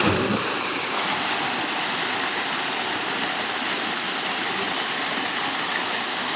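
Flowing water from a waterfall and stream rushing over rocks: a steady, even hiss.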